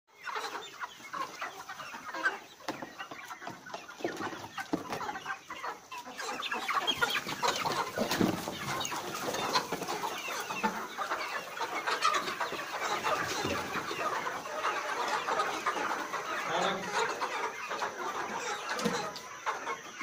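A large flock of Grampriya chickens clucking and calling all at once, many short overlapping calls. It grows louder and busier about six seconds in.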